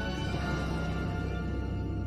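Background music: long held chords over a steady low drone, the chord shifting shortly after the start.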